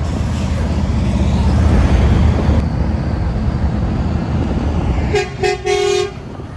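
Volvo truck passing, its diesel engine rumbling loudest about two seconds in, then three quick blasts on its horn near the end: two short and one slightly longer, on one steady pitch.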